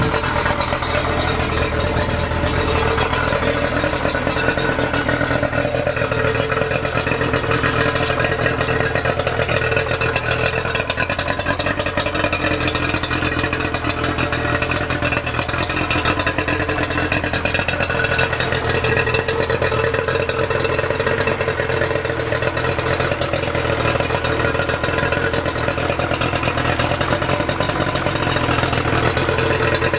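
Yamaha 50 hp three-cylinder two-stroke outboard idling steadily on the trailer, cooled by a garden hose on flush muffs, with its cowling off.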